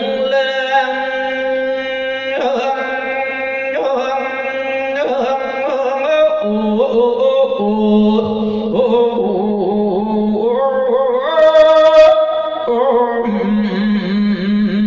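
Isan Thai sermon chanting (thet lae): a voice sings long, ornamented held notes that step and slide between pitches.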